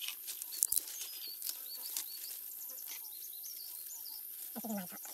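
Small birds chirping in forest undergrowth over a steady high insect hiss, with a couple of sharp clicks under a second in and a brief low voice near the end.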